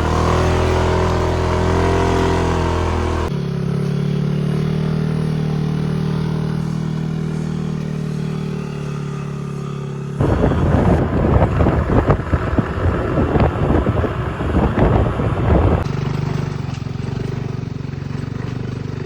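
Motorcycle engine running steadily on the move, the sound jumping at a few abrupt cuts. For about six seconds in the middle it is overlaid by a louder, rough, rapidly fluttering noise.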